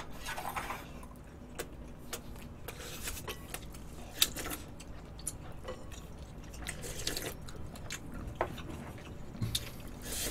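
Close-up eating sounds: wet chewing and mouth noises, with scattered light clicks of chopsticks against dishes.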